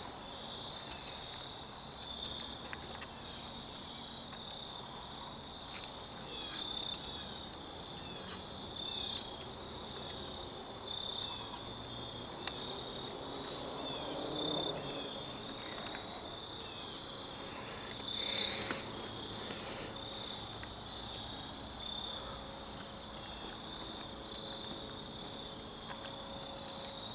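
Faint, steady high-pitched chirring of insects such as crickets, pulsing slightly, over soft rustling. A short noisy burst stands out about two-thirds of the way through.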